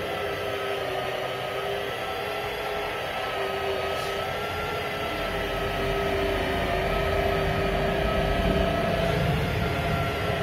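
Steady electric-motor drone holding a constant pitch, growing a little louder and deeper about halfway through.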